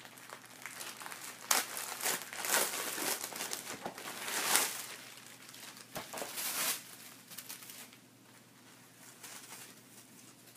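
Packaging crinkling and rustling in irregular bursts as a t-shirt is unwrapped and pulled out by hand, dying down to faint handling noise after about seven seconds.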